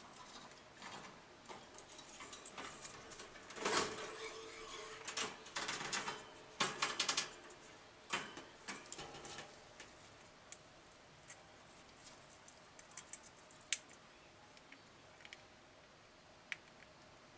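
Small metal bells and toy chains in a parrot's wire cage jangling and clicking as a conure climbs among them: a busy run of rattles and clicks with a short bell ring about four seconds in, thinning out to scattered ticks in the second half.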